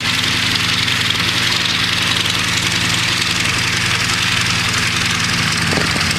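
Westland Lysander's nine-cylinder Bristol Mercury radial engine running steadily at low taxiing power, its propeller turning, with a slight shift in the engine note near the end.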